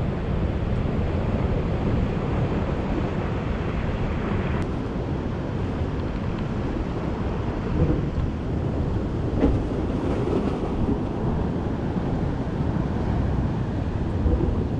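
Steady wind buffeting the microphone over ocean surf washing on a rocky shore, with two brief bumps about halfway through.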